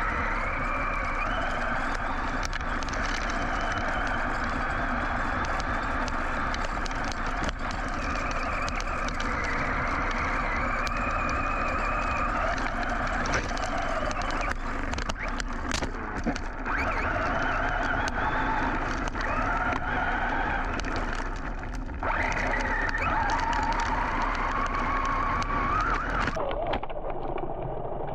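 Brushless electric motor of a Team Associated Rival MT10 RC monster truck whining up and down in pitch as the throttle is worked while it drives over dirt. A few sharp knocks come from hits or landings about halfway through, and the whine drops away near the end.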